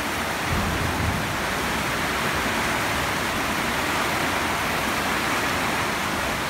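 Heavy rain pouring down on a paved road and trees, a steady, even hiss with no letup.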